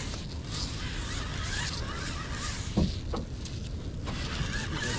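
Conventional fishing reel being cranked, winding in line on a hooked sturgeon, over a steady low rumble. A single thump about three seconds in.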